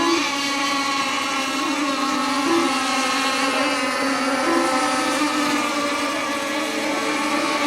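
Several radio-controlled racing boats' small engines running flat out together, a steady high-pitched drone with overlapping tones that shift slightly as the boats race around the course.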